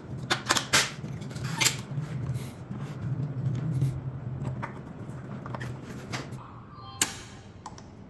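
AA batteries being pressed into a smart door lock's battery compartment: a string of sharp plastic clicks and clacks, then a single louder snap about seven seconds in.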